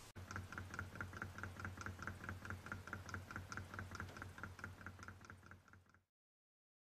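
Small model Ringbom Stirling engine running, with a light, even clicking about four to five times a second over a low hum. The sound cuts off suddenly about six seconds in.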